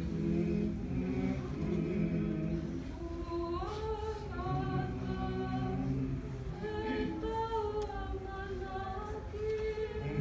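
A group of voices singing together in long held notes, with a higher voice rising in above the others about three and a half seconds in.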